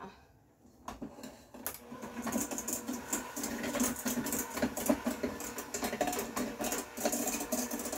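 Electric hand mixer running, its beaters creaming softened butter, sugar and vanilla in a stainless steel bowl. A couple of clicks come first, and the motor starts about two seconds in and runs steadily.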